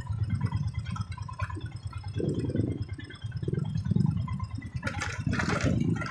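Motorcycle engine running with a fast, even low rumble, and a short burst of hiss about five seconds in.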